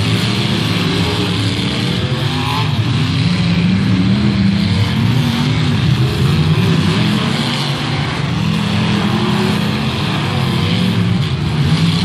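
Several off-road derby cars' engines running and revving together in the dirt arena, their pitches rising and falling continuously.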